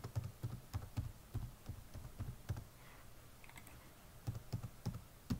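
Keystrokes on a computer keyboard: a quick run of typing, a pause of about a second and a half, then another short run near the end.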